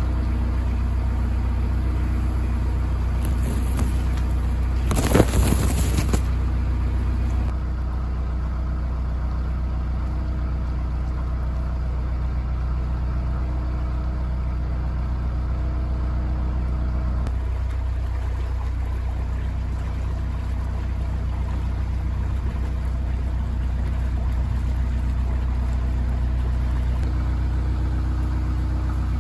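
Widebeam canal boat's diesel engine running steadily under way, a low even hum. A brief loud noise cuts across it about five seconds in.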